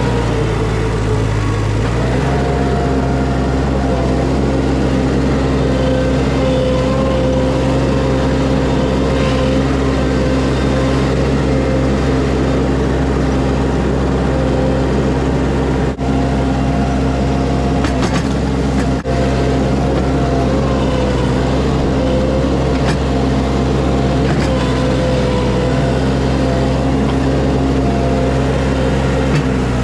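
Skid steer engine running steadily at a constant speed, its pitch holding level apart from a small shift about two seconds in.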